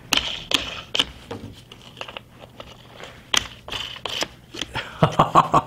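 Scattered clicks, taps and light scrapes of steel carriage bolts and stainless steel knobs against a Kydex cheek riser and synthetic rifle stock as they are fitted by hand, with a few sharper knocks near the end.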